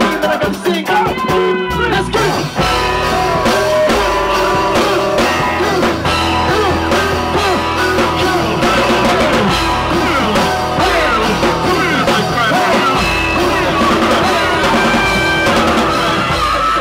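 Live band music with drums, bass and keyboard, and a vocalist performing into a handheld microphone over it.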